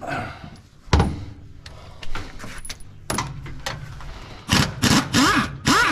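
Loose steel parts and hardware being handled on a combine: metal knocks and clinks, a sharp knock about a second in, then several loud scraping strokes with short squeals near the end.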